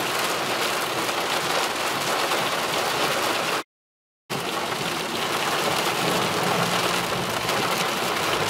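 Rain falling on a car's windshield and roof, heard from inside the car as a steady hiss. The sound cuts out completely for about half a second near the middle.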